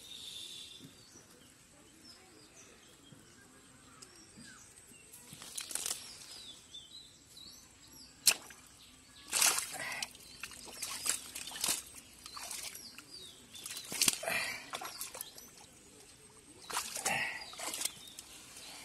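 Snakehead thrashing in shallow muddy water as hands grab at it: irregular wet splashes and slaps, starting about a third of the way in, with one sharp slap about halfway through and bursts of splashing after it.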